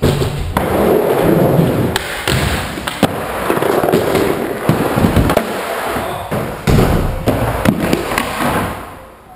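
Skateboard wheels rolling on wooden skatepark ramps, with many sharp clacks and thuds as boards and skaters hit the surface in falls. The rolling dies away near the end.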